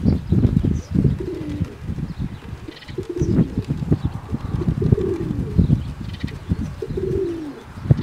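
Pigeons cooing about four times, roughly every two seconds, over wind buffeting the microphone with an uneven low rumble.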